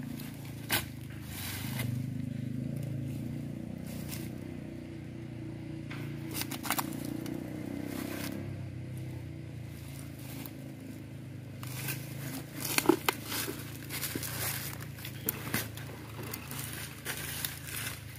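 Rustling and scraping in dry leaf litter and against wood as a person moves around and handles a freshly cut log, with a few sharp knocks, the loudest about two thirds of the way in, over a low steady hum; the chainsaw is not cutting.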